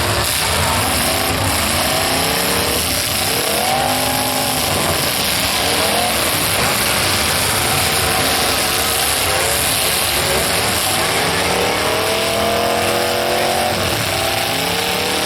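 Demolition derby car engines revving up and falling back again and again, several at once over a constant din.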